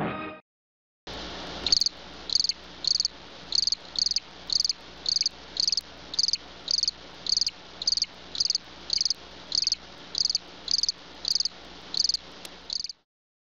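Cricket chirping in a steady, even rhythm of roughly one and a half chirps a second over a faint steady background. It starts about a second in, after a brief silence, and stops just before the end.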